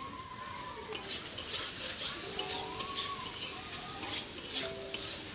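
A metal spatula scraping and stirring vegetables frying in a metal wok, over a sizzling hiss. Repeated scraping strokes against the pan start about a second in.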